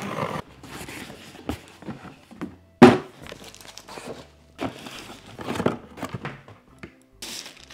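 Cardboard packaging being handled while a printer box is unpacked: flaps and inserts rustling and scraping, with one loud thud about three seconds in, and plastic wrapping crinkling.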